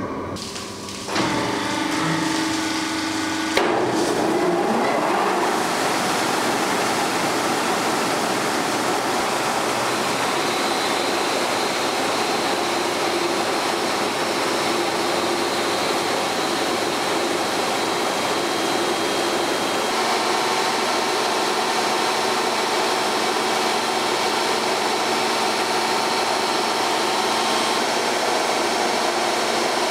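Large water-cooled circular bridge saw cutting a stone block. The saw starts with a steady hum about a second in. At about three and a half seconds the blade bites into the stone, and a loud, steady grinding hiss with spraying water takes over.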